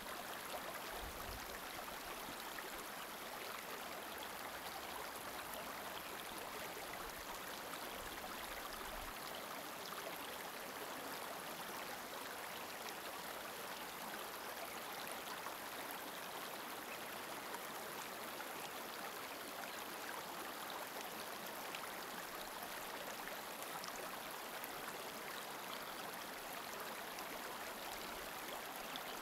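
Steady, even rushing of running water, as of a stream, with brief low rumbles about a second in and again around eight to nine seconds in.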